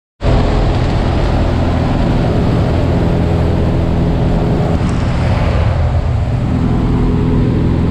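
Small propeller jump plane's engine droning steadily, heard through the open door with a loud rush of wind.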